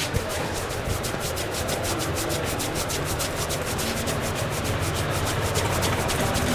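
Hands rubbing briskly over a person's hair and scalp in a head massage, a fast, even rhythm of about seven strokes a second.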